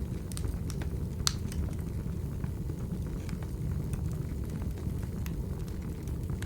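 Wood fire burning in a fireplace: a steady low rumble with scattered sharp crackles and pops, the loudest pop about a second in.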